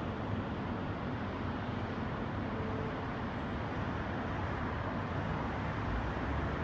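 Steady hum of city traffic, an even wash of noise with no single vehicle standing out.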